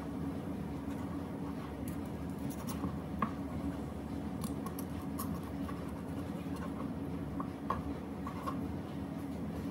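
Knife slicing through grilled chicken onto a plastic cutting board: scattered light taps and scrapes, over a steady low hum.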